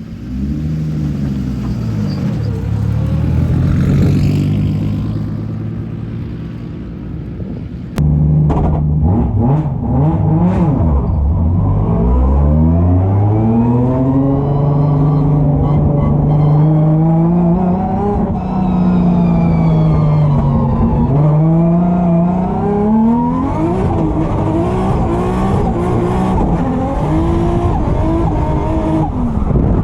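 Drift car's engine revving hard on track, its pitch climbing and dropping every few seconds as it is driven through corners, with some tyre noise. It is a test lap after the injectors were cleaned to cure a misfire. The sound gets suddenly louder about eight seconds in.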